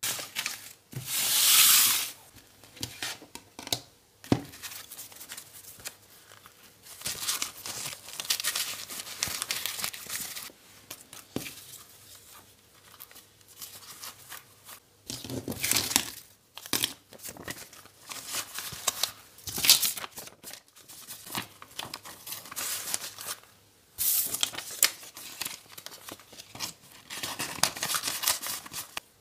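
Paper banknotes rustling and crinkling in irregular bursts as they are handled and slid into the slots of a leather wallet, with a few small clicks and taps from the handling.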